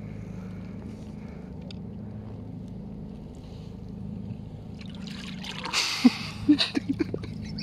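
Water splashing about five seconds in, ending in a quick run of five or six sharp slaps, over a steady low hum.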